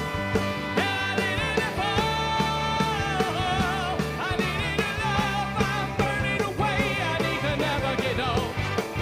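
Live rock band playing with drums, electric bass, electric guitars, trumpet and saxophone over a steady beat, with long held, wavering melody notes.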